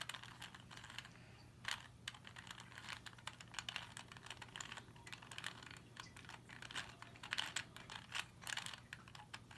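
2x2 Rubik's Cube being turned by hand during a solve: faint, irregular plastic clicks and clacks as the layers are twisted, some in quick runs.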